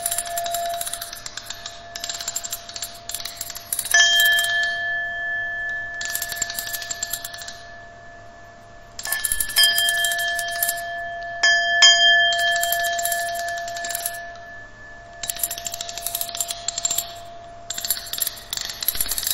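Experimental noise music: steady ringing electronic tones that switch in and out abruptly over patches of hiss and crackle, with a few sharp clicks, loudest about four seconds in and around twelve seconds in.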